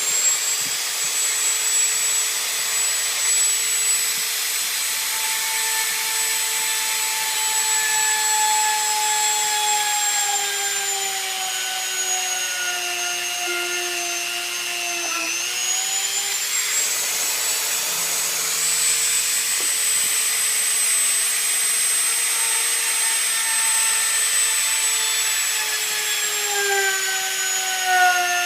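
Electric hand drill with a 1/8-inch bit boring static port holes in a model rocket airframe. The motor's whine sags in pitch as the bit cuts, dips sharply about halfway through, then picks back up and sags again near the end.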